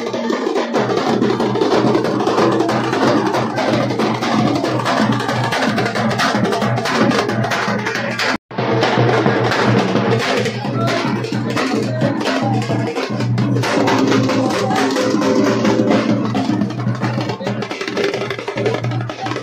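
Music with drums playing loudly, with crowd voices mixed in; the sound cuts out for a split second about eight seconds in.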